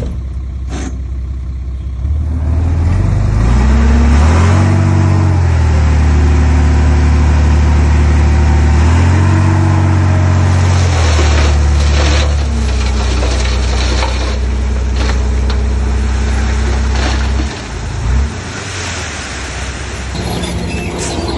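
Heavy diesel engine of an earthmoving machine revving up under load. Its pitch climbs twice, eases back after about twelve seconds, then briefly drops and picks up again near the end.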